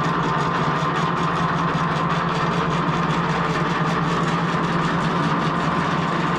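Stepper motors of a BulkMan3D CNC router driving the gantry and spindle carriage across the table in a jog move. A steady mechanical hum with a thin high whine over it.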